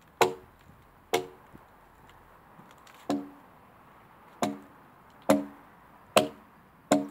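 Axe chopping into a log: seven sharp blows at uneven intervals of about a second, each with a short ringing note from the wood.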